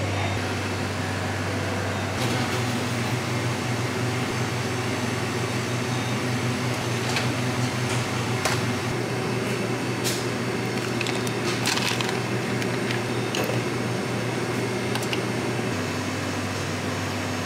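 f'real self-serve milkshake blender running its blend cycle, a steady motor hum whose low drone changes abruptly about two seconds in, again about halfway, and near the end. A few short sharp clicks come from the machine.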